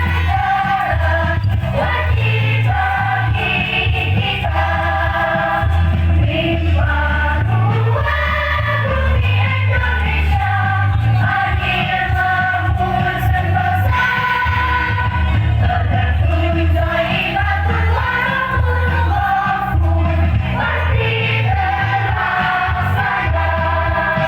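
Choir singing over amplified musical accompaniment played through a PA sound system, with a strong pulsing bass line under the voices.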